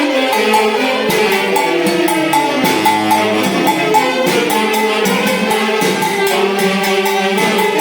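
Tunantada, Andean dance music, played by a band-orchestra: melody instruments hold and step between notes over a quick, steady percussion beat.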